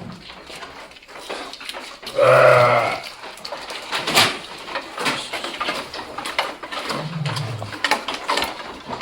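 Nellore sheep bleating: one loud, wavering bleat about two seconds in, then a lower, shorter call near the end, with scattered knocks and scuffles in between.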